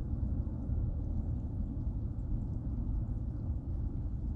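Steady low rumble of wind on a camera microphone.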